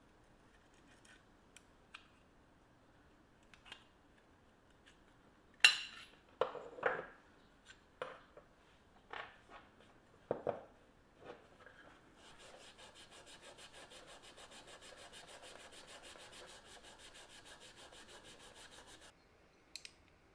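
Metal clicks and scraping as pliers pry the tabs of a small DC motor's steel housing and the end can is pulled off the motor. This is followed by a steady, fast rasping for about seven seconds, and one more click near the end.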